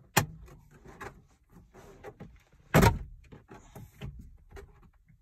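Renault Kwid's plastic centre-console trim panel being pried off by hand. There is a sharp click just after the start and a louder crack about halfway through as its locking clips pop free, with small plastic knocks and rustles in between.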